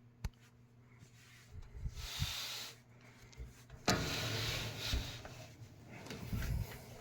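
A box fan being handled and shifted, with rubbing and scraping sounds and a sharp knock about four seconds in.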